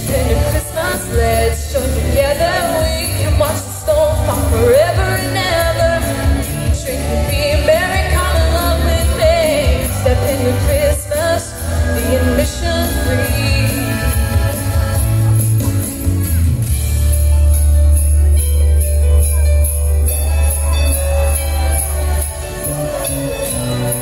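A female vocalist singing a Christmas pop song through a stage PA over a backing track with jingle bells and a heavy bass line. The voice drops out about halfway through, leaving the backing track playing.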